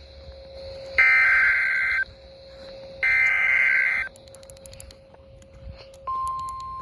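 Emergency Alert System SAME header data bursts: the harsh two-tone digital squawk, twice, each about a second long with a second's gap, as the tail of an earlier burst ends. They encode the header of the next alert. About six seconds in, the steady single-pitch 1050 Hz NOAA Weather Radio attention tone begins.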